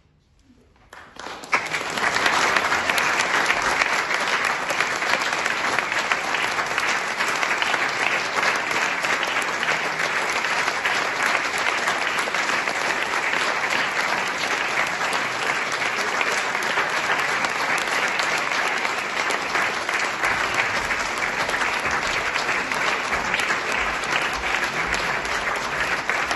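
Audience applauding: after about a second of near silence, a few first claps, then steady applause.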